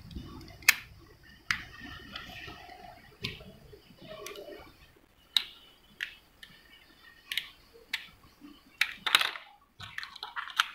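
Small white plastic door/window magnet sensor casing being pried at and handled during a battery change: scattered sharp plastic clicks and snaps, one every second or two, the loudest about a second in and a cluster near the end, with light rustling of the parts.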